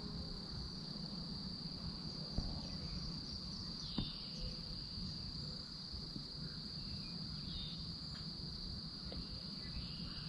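Steady high-pitched chorus of insects, crickets or the like, over a low background rumble, with a couple of light taps a few seconds in.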